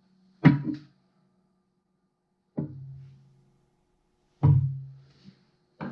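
Three hammer blows about two seconds apart, each leaving a low ringing hum. They are knocks on the Farmall H's transmission top cover, which is under lifting tension, to break it loose.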